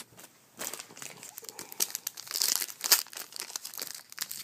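Foil trading-card pack wrapper crinkling and tearing as it is handled and opened, a dense crackle that starts about half a second in.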